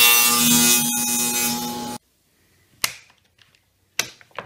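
Table saw running with its blade cutting a shallow, roughly 1/8 inch slot across the end of a wooden block. The steady whine and hiss stop abruptly about two seconds in. A few sharp clicks and knocks follow as the quick-grip clamps holding the block are handled.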